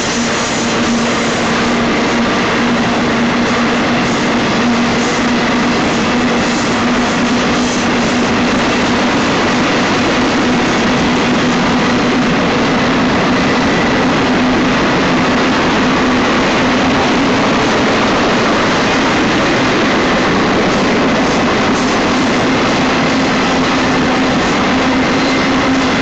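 BNSF intermodal freight train's cars rolling past close by: a loud, steady rumble of steel wheels on rail with a steady droning tone underneath.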